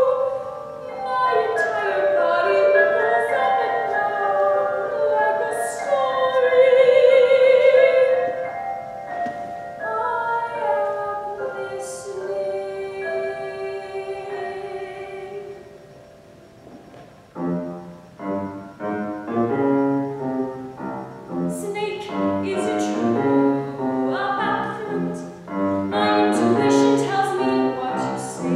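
A woman singing classical art song in an operatic style, holding notes with vibrato, accompanied by a grand piano. Past the middle the voice stops for a few seconds while the piano plays on alone, then the singing comes back in.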